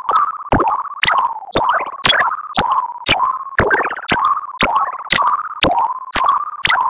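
Computer-generated sensory-substitution soundscape from an autoencoder encoding an image of a beer can. It is a regular series of synthetic chirps, about two a second. Each one is a sharp click followed by a short gliding tone that settles onto a steady mid-pitched hum.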